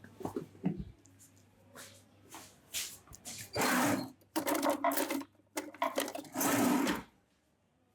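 Hands rubbing vigorously over hair and scalp during a head massage, in a run of loud strokes each half a second to a second long, starting about halfway through and stopping shortly before the end.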